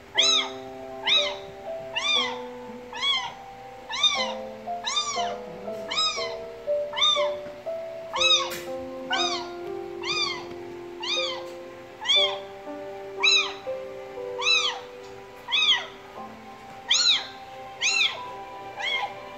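A four-week-old kitten crying for its missing mother: high meows that rise and fall in pitch, repeated about twice a second without a break, over soft background music with held notes.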